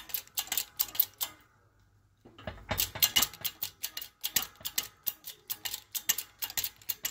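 Rapid, irregular metallic clicking and ticking from a 12-ton shop press as its ram is brought down toward the differential pinion shaft, stopping for about a second roughly 1.5 seconds in.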